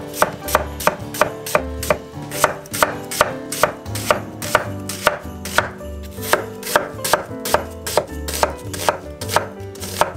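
Broad-bladed kitchen knife slicing an onion on an end-grain wooden cutting board: a steady run of sharp knocks as the blade meets the board, about three a second.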